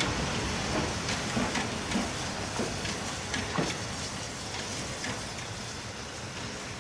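French 140 C 231 steam locomotive, a 2-8-0, running slowly on the track: a steady hiss of steam with scattered clanks and knocks from the wheels and running gear, fading as it moves away.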